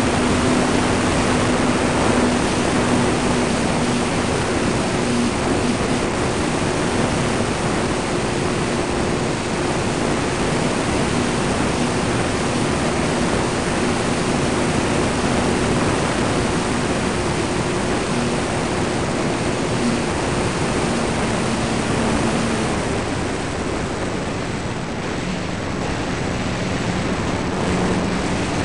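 Onboard sound of a ParkZone T-28 Trojan electric RC plane in flight: a steady rush of wind over the belly-mounted camera's microphone, with the thin hum of the motor and propeller underneath. About three-quarters of the way through, the motor's tone drops to a lower pitch.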